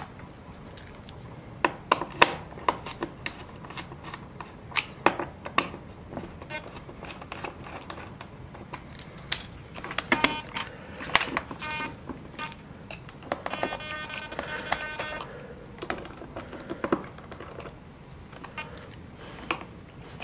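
Small clicks and taps of a screwdriver and fingers working in a wing's servo bay, loosening the servo's screws to free a pinched aileron wire. A few brief squeaks come about halfway through.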